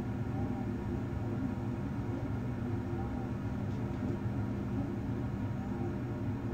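Steady low machine hum with a rushing noise, like an equipment or ventilation fan, with a faint short chirp repeating about every two and a half seconds.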